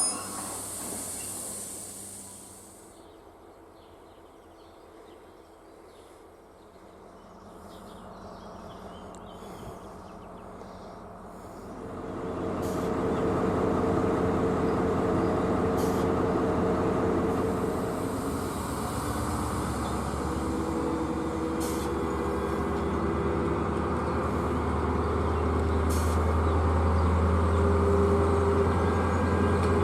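Diesel locomotive of the SNCF BB 60000 class running. After a quiet stretch, its engine comes in about twelve seconds in as a steady drone with a deep rumble that grows stronger near the end, with a few sharp clicks.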